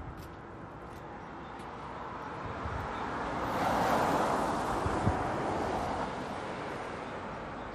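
A road vehicle passing by, its tyre and engine noise swelling to a peak about four seconds in and then fading away. There is a single soft knock about five seconds in.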